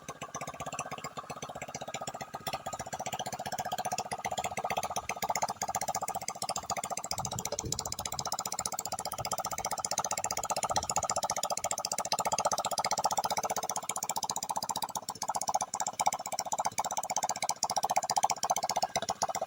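Small 110cc motorcycle engine running steadily, with a rapid, even firing beat, after a new carburetor and air filter have been fitted.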